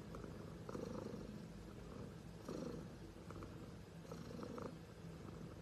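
Orange tabby cat purring as its cheeks and neck are massaged: a steady low rumble that swells a little louder every couple of seconds.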